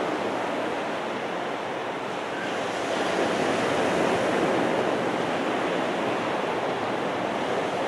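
Ocean surf washing onto a beach in a steady, even rush that swells slightly a few seconds in.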